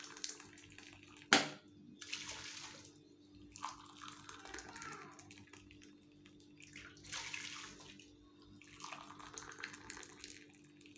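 Warm water poured from a glass cup into a large empty pot, splashing in a series of separate pours, one cupful after another. A single sharp knock comes about a second in.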